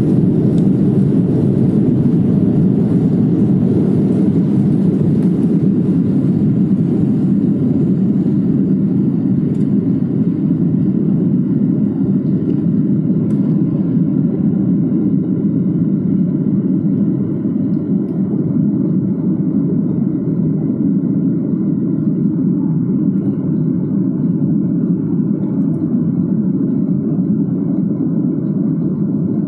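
Airliner jet engines at takeoff heard from inside the passenger cabin: a loud, steady low rumble as the plane leaves the runway and climbs out, easing slightly about seventeen seconds in.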